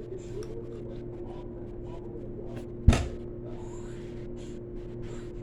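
One sharp knock, like something bumped or set down, about three seconds in, over a steady low hum and faint short rustling clicks.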